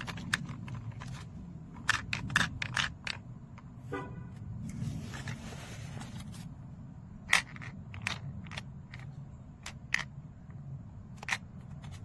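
Things being handled: a scatter of sharp clicks, knocks and scrapes over a low steady hum, with a short brief hiss about halfway through.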